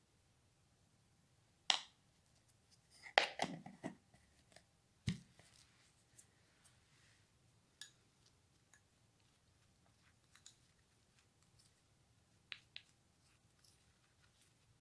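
Plastic spoon clicking and scraping against a small glass bowl and a plastic jar while scooping cocoa powder: a sharp click a little under two seconds in, a cluster of knocks around three to four seconds, another near five seconds, then only faint scattered ticks.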